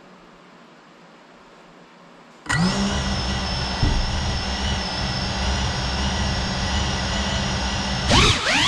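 Small quadcopter motors and propellers of a GEPRC CineLog 35 cinewhoop spinning up suddenly about two and a half seconds in, then holding a steady buzzing whine. Near the end the pitch swoops up and down sharply as the throttle is worked.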